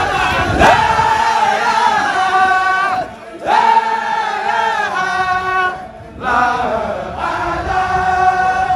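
A crowd of Baye Fall men chanting together in unison, holding long sung notes in phrases that break off briefly twice.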